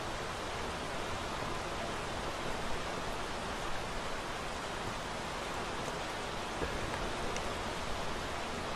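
Steady, even outdoor hiss with no distinct events beyond a few faint ticks, the kind made by drizzle, surf or wind on an open sea pier.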